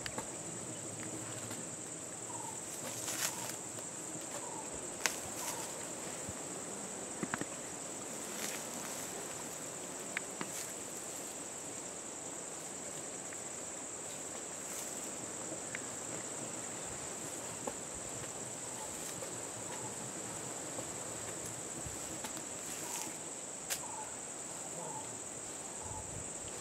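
Steady high-pitched drone of insects, with a few sharp clicks scattered through it.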